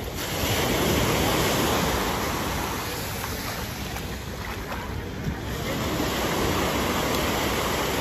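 Sea waves breaking and washing up on the beach: surf that swells about half a second in, eases off, then swells again about five and a half seconds in.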